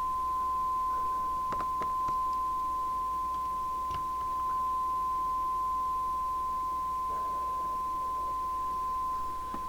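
Steady single-pitched audio test tone, the kind fed into a CB radio's transmitter while its modulation is set, running unbroken with a few faint clicks and a low hum underneath.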